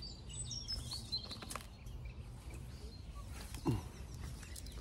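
Small birds chirping over steady low outdoor background noise, with a few brief rustles or clicks and one short downward-sliding sound a little past three and a half seconds in.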